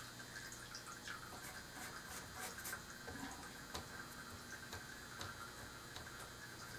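Faint, irregular small ticks and soft taps over a low steady hum.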